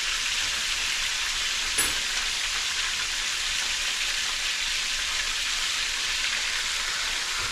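Cubed steak browning in a hot skillet: a loud, steady sizzle. A brief tap comes about two seconds in.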